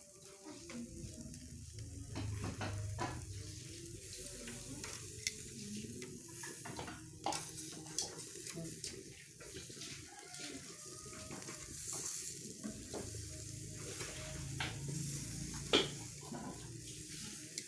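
Chicken grilling over a wood-fired clay angklo stove: a steady sizzle, with scattered clicks and knocks of cooking utensils.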